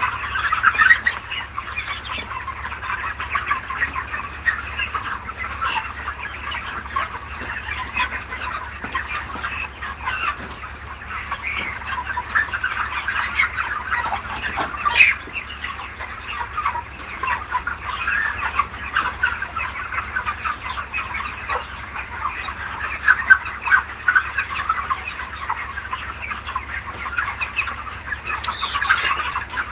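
A flock of chickens in a poultry house clucking and calling all at once, a dense unbroken chorus of many short calls, over a steady low hum.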